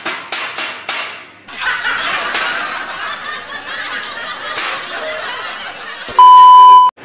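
A person laughing: first a quick run of short bursts, then a longer stretch of laughter. About six seconds in, a loud steady 1 kHz test-tone beep, the classic colour-bar censor bleep, sounds for under a second and cuts off sharply.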